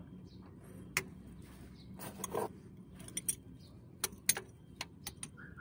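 Sharp metallic clicks and clinks of locking pliers and a wrench working the clutch pushrod adjuster, with a brief rasping scrape about two seconds in.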